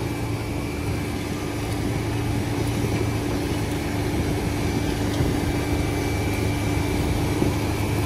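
Tractor running steadily as it pulls a Simba Freeflow seed drill through the field, a constant low hum with a faint steady high whine above it.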